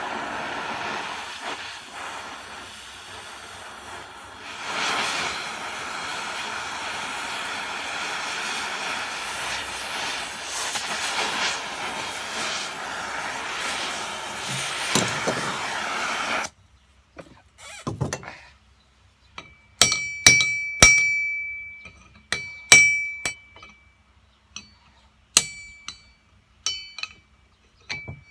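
Oxy-acetylene torch flame hissing steadily as it heats steel bar stock for bending, cutting off suddenly about 16 seconds in. Then about ten hammer blows on the steel bar, each ringing briefly.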